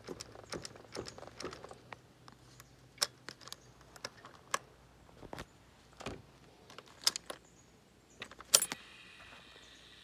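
A bunch of keys jingling and clicking on its ring at a motorcycle's ignition switch as the key is handled, in irregular light metallic clicks with a sharper clack about eight and a half seconds in. Right after it, a faint steady high whine begins as the ignition comes on and the digital gauge cluster lights up.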